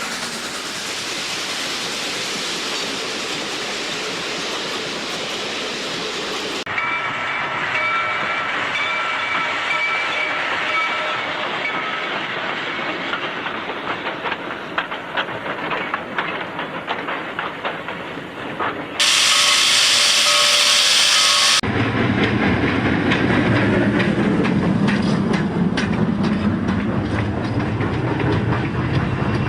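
Spliced steam-train sound effects. A steady hiss of steam is followed by a loud steam whistle blast of about two and a half seconds. Then comes a train rolling along the rails with a clickety-clack over a low rumble.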